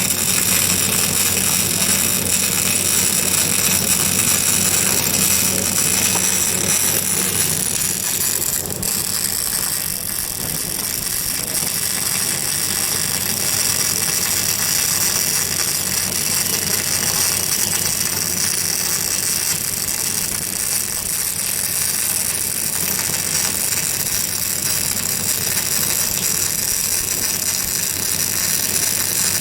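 Electric arc welding: a steady crackling and hissing arc with a low electrical hum underneath, with a slight break about nine seconds in.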